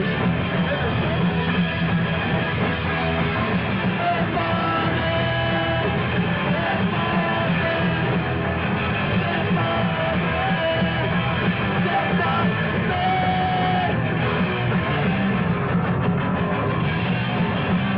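Live hardcore punk band playing: loud electric guitar rock with vocals.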